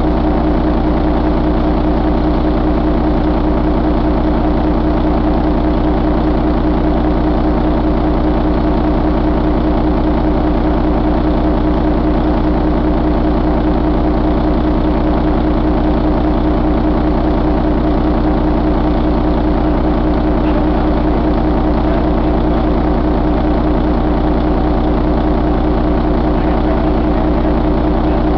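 2004 Mercedes-Benz MBE4000 inline-six diesel engine idling steadily, heard close up in the engine bay, with an even, unchanging rhythm.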